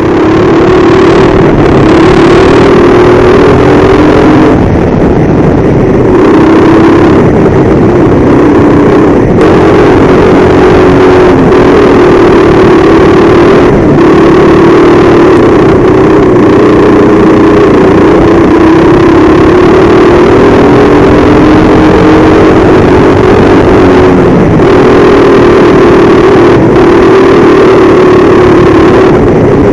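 Go-kart engine heard on board, loud and close, running hard through a lap; its pitch rises and falls repeatedly as the kart accelerates out of corners and slows into them.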